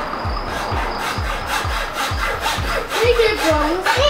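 Hacksaw strokes rasping back and forth through the hard outer shell of an old 1970s motorcycle helmet. A steady background music beat runs underneath.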